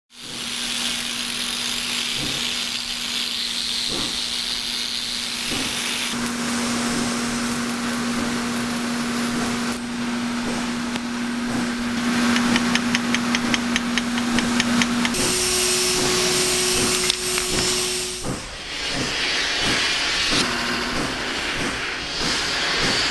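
Steady hissing noise over a low, even motor hum. The sound changes abruptly several times, and there is a run of rapid, evenly spaced ticking about halfway through.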